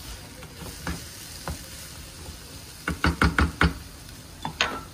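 Garlic and red chilli paste sizzling in oil in a non-stick frying pan, stirred with a plastic slotted spatula that scrapes and knocks against the pan. A quick run of about five knocks comes about three seconds in, with one more near the end.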